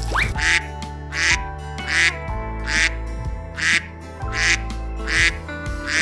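Duck quacks, about seven in a row at a steady pace a little over once a second, over background music.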